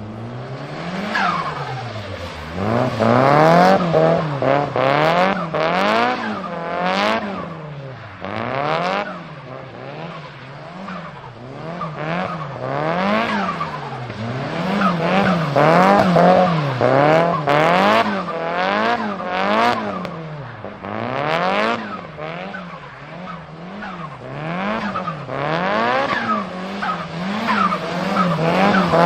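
Turbocharged Nissan Silvia S15 engine revving up and falling back over and over, about once a second, with short sharp bursts of turbo flutter as the throttle closes between revs.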